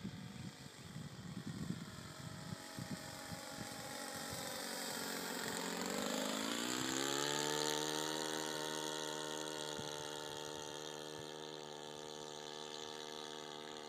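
Radio-controlled old-timer model airplane's engine buzzing in flight; about six seconds in its pitch rises and then holds steady, loudest just after, then slowly fading. Wind buffets the microphone in the first few seconds.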